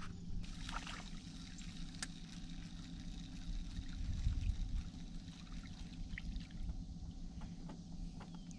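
Light splashing and trickling of water as a hooked crappie thrashes at the surface and is lifted out, with a louder patch of splashing about halfway through, over a steady low hum.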